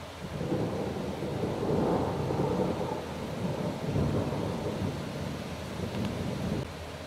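Rolling thunder rumbling for about six seconds, swelling twice, then dying away fairly suddenly.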